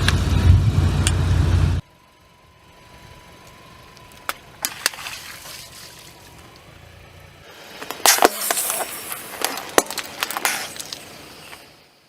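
Car tyres rolling over and crushing objects: a loud rumbling crunch that cuts off abruptly, then a quiet stretch with a few sharp clicks, then a burst of cracking and crackling a few seconds before the end.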